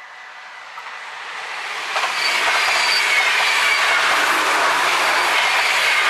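NS InterCity train passing at speed over a level crossing. A rushing noise builds, jumps sharply about two seconds in as the train reaches the crossing, then holds as a loud steady rush of wheels on rail with a thin, high squealing ring over it.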